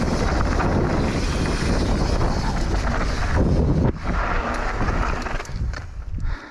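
Wind rushing over the camera microphone along with tyre and rattle noise of a mountain bike riding down a rough trail; the noise eases in the last second or two.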